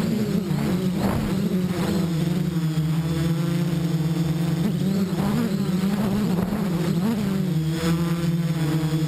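Quadrocopter's electric motors and propellers buzzing steadily as it flies a fast slalom around poles, picked up by a GoPro camera on board. The pitch swells and dips several times as the craft manoeuvres.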